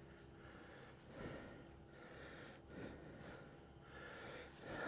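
Near silence with a few faint breaths close to the microphone.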